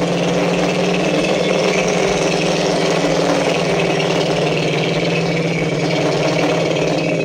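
Deinotherium sound effect: a low, steady, engine-like rumble with a constant hum, held without a break for about seven seconds.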